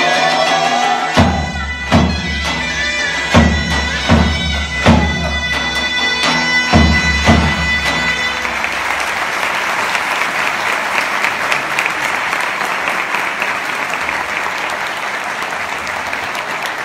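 Zurna playing over a steady held drone, with a handful of heavy davul strokes, as the zeybek tune comes to its close. About eight seconds in the music stops and audience applause takes over.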